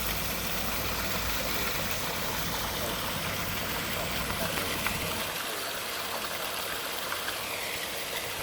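Steady rushing of a waterfall. A low steady hum sits under it and fades out about five seconds in.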